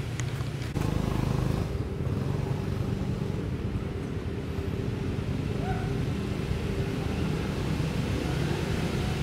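A steady low motor rumble, like an engine running, that gets a little louder about a second in.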